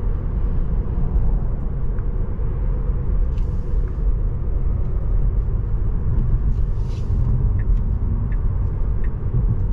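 Steady low road rumble inside a moving Tesla's cabin, with no engine note, only the hum of tyres and road.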